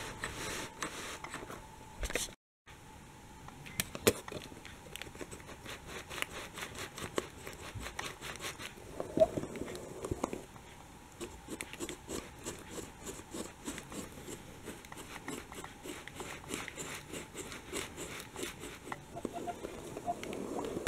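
Plastic toy train wheels rolling and scraping on a cardboard-and-felt track under a pushing hand: faint, irregular clicks and scratches.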